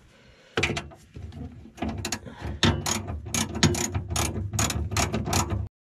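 Hand ratchet wrench clicking in quick runs of pawl clicks as a bolt is turned down.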